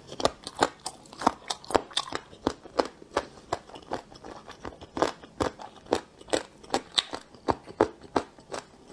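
A person chewing a mouthful of spicy braised pork rib close to the microphone: a steady run of short, wet, crunching clicks, about two or three a second.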